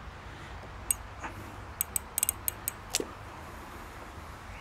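Small metal clicks and taps as the clutch cable's end fitting is worked into the recess of an aftermarket clutch lever, a string of sharp ticks mostly between one and three seconds in, over a low steady hum.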